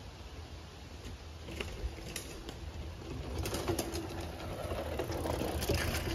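Specialized Stumpjumper mountain bike rolling down stepped rock slabs toward the camera and past it: tyres rumbling over the stone with clicks and rattles from the bike, growing louder over the last few seconds as it nears.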